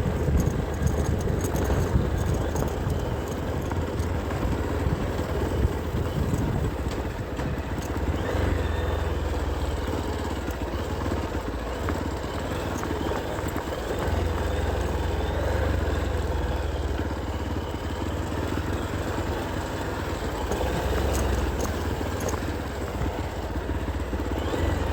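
A motor vehicle engine running steadily, a continuous low rumble with some outdoor noise.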